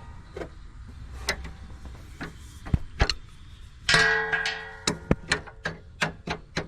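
Hand tools and metal parts clicking and knocking against each other in irregular sharp taps, with one louder ringing metallic clank about four seconds in.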